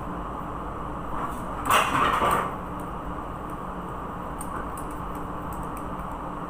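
Steady mechanical hum, with a short scraping or rushing noise lasting under a second about two seconds in, the loudest thing here, and a few faint clicks later on.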